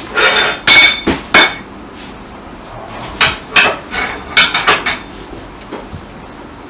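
Sharp metallic clanks and clinks of metal scooter parts and tools being handled, with a short ring after each. Three loud ones come in the first second and a half, then a looser cluster around the middle.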